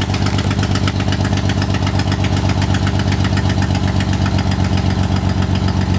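BMW E36 inline-six idling on a cold start, heard at the dual exhaust tips, with a loud, even, fast pulsing. The massive noise is an exhaust leak at the header for the back three cylinders.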